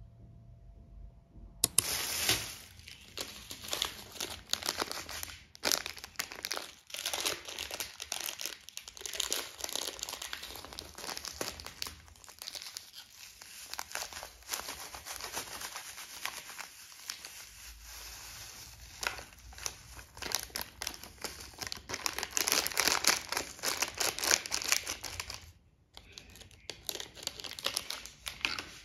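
Crinkling and crackling of crinkly material being handled, starting about two seconds in, with a brief pause near the end.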